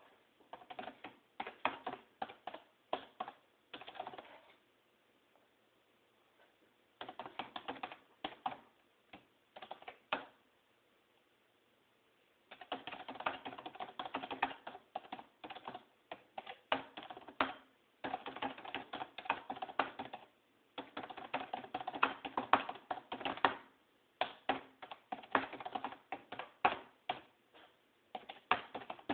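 Fast typing on a computer keyboard: runs of rapid key clicks, broken by a couple of pauses of about two seconds in the first half.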